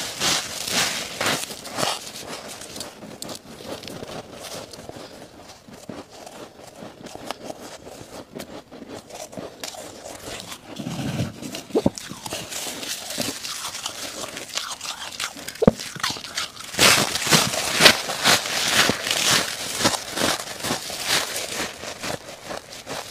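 Freezer frost ice crunching loudly as it is bitten and chewed, near the start and again in a long run of crunches over the last third. In between, quieter rustling and crunching as more frost is scooped up by hand.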